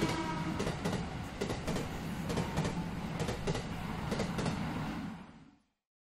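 Passing-train sound effect: a steady rumble of wheels on rails with clacking over the rail joints, about three clicks a second, fading out about five seconds in.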